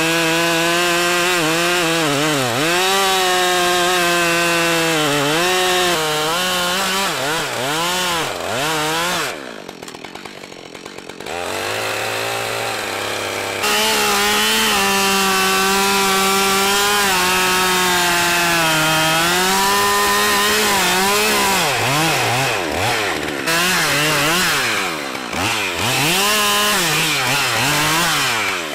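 Husqvarna 572 XP two-stroke chainsaw cutting into a tree trunk at full throttle, its engine pitch dipping and recovering as the chain loads up in the wood. About nine seconds in it drops to idle for a few seconds, then revs back up and cuts again until it drops off right at the end.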